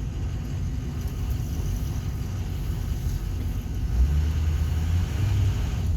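Low, steady rumble of a vehicle's engine and tyres heard from inside the cab while driving slowly, with a louder low hum from about four seconds in.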